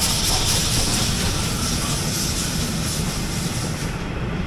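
Steam locomotive passing close by, with a loud steady hiss of steam over the low rumble of the train. The hiss falls away about four seconds in as the wagons follow.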